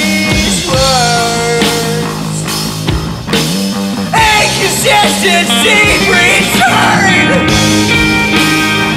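Rock song played by a band, with singing over bass and drums.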